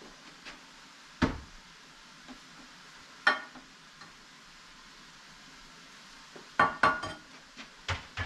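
Cookware clatter: a spoon knocking and clinking against pots and pans on an electric stove, scattered sharp knocks with a cluster around seven seconds in, over a faint steady sizzle of ham frying in a skillet.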